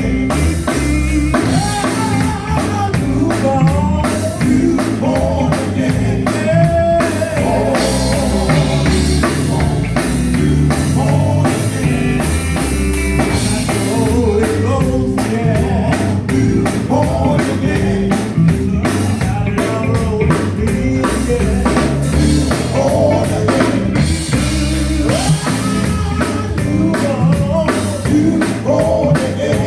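Live gospel band playing with a driving drum kit, bass and electric guitar, with a lead singer and backing voices singing over it.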